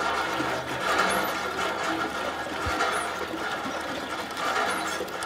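Hand-lever water pump being worked: the steel handle and pump mechanism creak and clank in a regular rhythm, with a short high squeak at each stroke about every two seconds.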